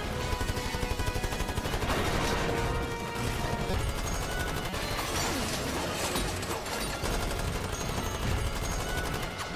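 Rapid, continuous automatic gunfire, with a film score running underneath.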